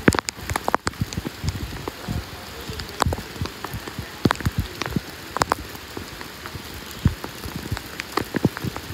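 Heavy rain falling steadily, with irregular sharp taps of single drops striking close by.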